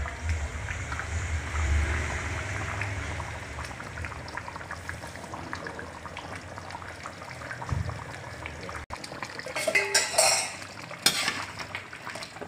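Chicken stew boiling in an open aluminium pot, a dense, steady crackle of bubbles bursting. Near the end a metal ladle knocks against the pot a few times as it goes in to stir.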